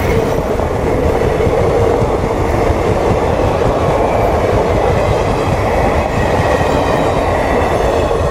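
Passenger coaches of two trains crossing at speed on adjacent tracks, their wheels on the rails making a steady loud rumble.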